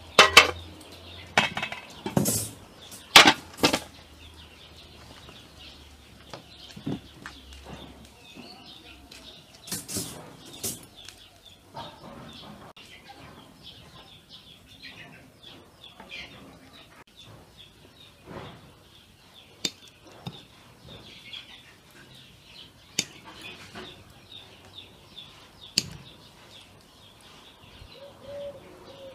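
Perforated aluminium colander knocking and clattering against pots several times in the first four seconds, then quieter scattered clicks of dishes and utensils as food is laid on the rice. Birds chirp faintly in the background.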